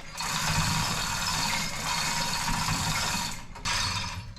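Hoist running with a steady mechanical rattle and whir as it hauls on its chain to draw the piston out of a hydraulic cylinder barrel. It stops briefly about three and a half seconds in, then runs again.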